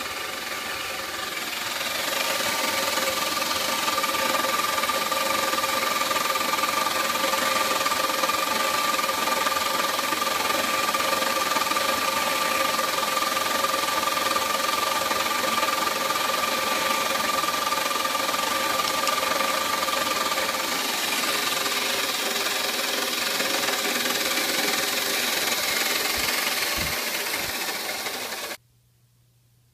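CNC milling machine's spindle running as an end mill cuts a clear plastic block in a detail clean-up pass after the rough cut: a steady, loud cutting noise with a high whine that fades about two-thirds of the way through. The sound stops abruptly just before the end.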